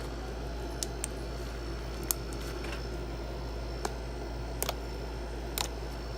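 Slime being squished and stretched by hand, giving off a handful of sharp little pops and clicks at irregular moments, over a steady low hum.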